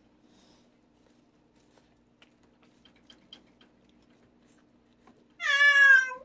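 A domestic cat gives one loud meow near the end, about a second long and falling slightly in pitch. Before it come faint small clicks while a cat nibbles a treat.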